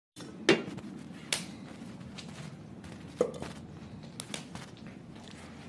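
Quiet room ambience broken by a few sharp knocks and clicks of people moving about indoors. The loudest comes about half a second in, with others near one and a half and three seconds.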